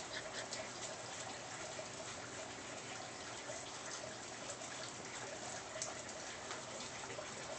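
Faint rustling and scratching as a small dog paws and turns on a fabric blanket, with a few small ticks over a steady hiss.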